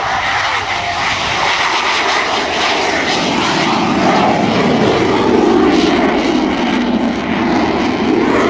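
Twin turbofan engines of an F/A-18 Hornet at takeoff thrust as the jet lifts off and climbs away: a loud, continuous jet roar that swells a little about halfway through.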